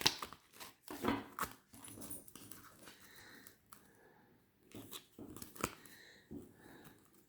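Handling noise: scattered light taps, clicks and rustles as cards and small items are moved about by hand, with a few faint, short, high squeaks.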